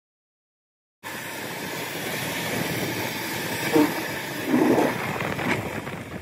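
Wind rushing over the microphone, with tyre noise, while riding in an open electric utility vehicle: a steady rushing noise that starts suddenly about a second in, with two louder gusts near the middle, and cuts off at the end.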